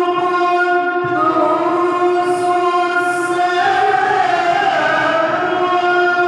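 A long, steady held note at one unchanging pitch, rich in overtones, that wavers slightly and grows brighter around the middle.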